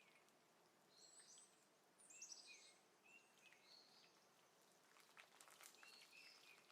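Near silence, with faint, short, high bird chirps scattered throughout.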